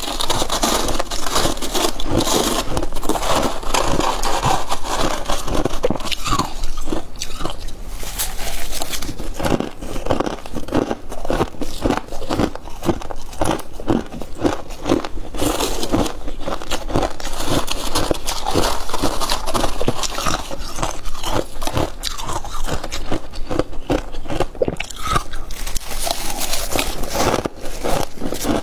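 Close-up crunching of freezer frost being bitten and chewed, many sharp crunches in quick succession.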